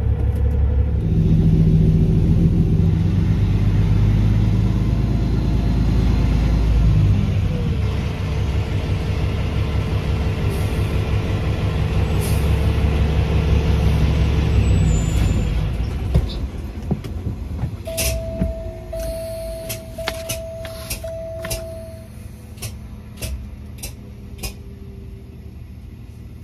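Semi truck's diesel engine running from inside the cab, its note shifting a few times as it moves, then dropping to a quieter idle about sixteen seconds in. After that come scattered clicks and four short steady beeps in a row.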